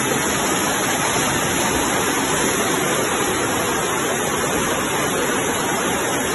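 Floodwater rushing down a street in a fast, churning torrent: a loud, steady rush of water.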